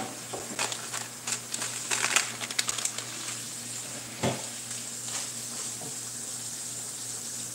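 Quick clicks and knocks of seasoning containers being handled and put away in a kitchen cabinet, with one louder knock about four seconds in. Under them runs the steady sizzle of pork chops frying in a pan.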